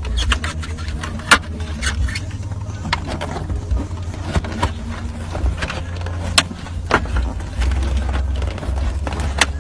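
Scattered sharp clicks and knocks of plastic dashboard trim and vent parts being handled and fitted, three louder knocks among them, over a steady low rumble.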